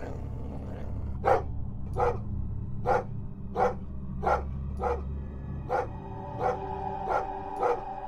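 A dog barking about ten times in an even rhythm, a little over one bark a second, over a low steady rumble.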